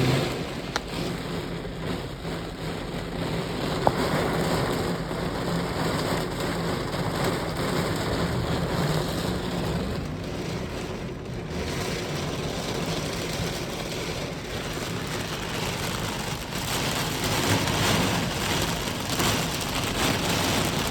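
Rain falling steadily in a storm, an even hiss, with two brief sharp clicks about one and four seconds in.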